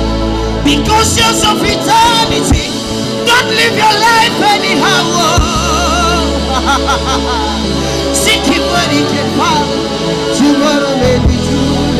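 Slow worship music: steady held chords over a deep bass, with a wavering melody line rising above them through the middle few seconds.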